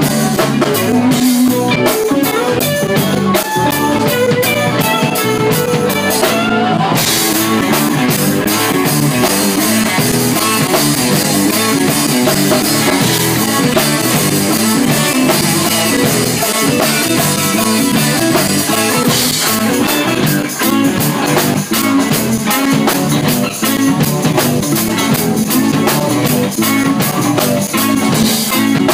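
A live rock band playing: electric guitars over a drum kit keeping a steady, fast beat on the cymbals and drums. The cymbals break off for a moment about six seconds in.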